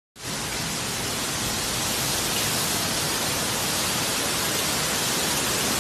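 Heavy rain pouring down onto a road in a torrential downpour: a dense, steady hiss.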